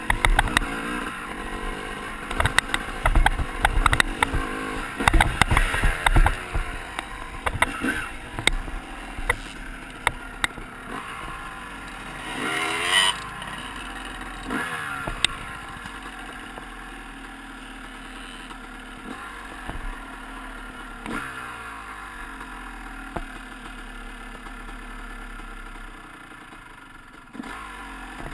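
Dirt bike engine running while riding over a dirt trail, with rattling clicks and low buffeting over the bumps during the first half. The engine then settles to a steadier, quieter idle.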